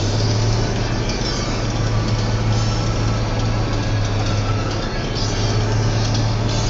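Caterpillar Challenger MT875 rubber-tracked tractor's diesel engine running steadily under way, heard from inside the cab as a constant low drone with a broad rushing noise over it.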